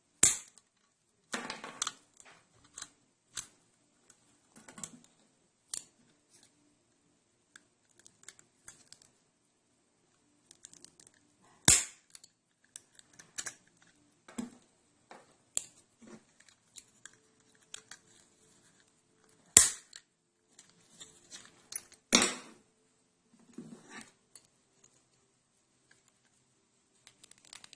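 Irregular small clicks and clatter of a hand-squeezed diecast wheel removal tool working wheels off 1/64 scale model vehicles, with a few sharp, loud snaps as wheels pop off their axles.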